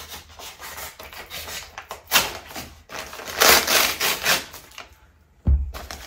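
Knife cutting open a cardboard parcel: a run of scraping, slicing strokes through tape and cardboard, loudest about three and a half seconds in, then a dull thump near the end.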